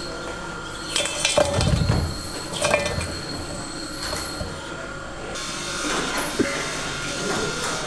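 Metal parts clinking and knocking against a rusty cast rear-differential housing as the pinion is set into its bearing bore: a cluster of sharp clinks about a second in, another soon after and softer ones later. A steady high tone runs in the background.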